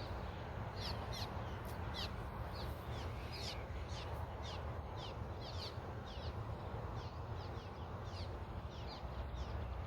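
A bird chirping over and over in short, quick, falling high notes, about two a second, over a steady low rumble of wind or flowing water.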